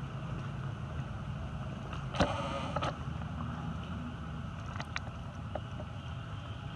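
Steady low rumble of wind on the microphone outdoors, with one short pitched call or cry lasting under a second about two seconds in, and a few faint clicks.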